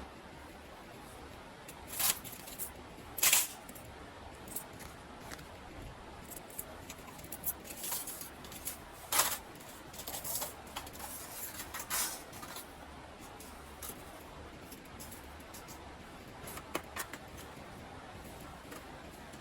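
Irregular sharp clicks and snaps over a low steady background, with a few louder ones about two, three, nine and twelve seconds in.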